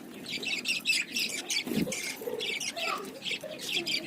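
Budgies and finches chirping rapidly, a dense run of short, high chirps with a few lower warbling calls mixed in.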